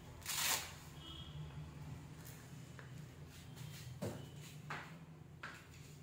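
Faint handling noises: a short rustling swish about half a second in, then a few soft knocks and clicks, over a low steady hum.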